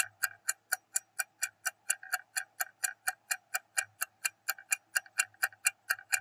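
Clock-ticking sound effect of a quiz countdown timer, steady at about four ticks a second, counting down the time left to answer.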